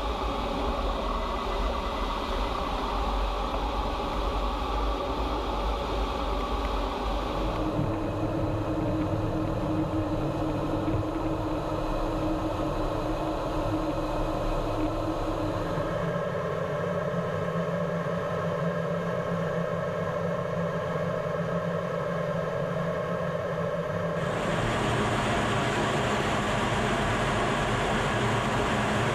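Steady drone of an F-15E Strike Eagle's twin jet engines and rushing air, heard from inside the cockpit, with a low hum running under it. The tone changes abruptly three times.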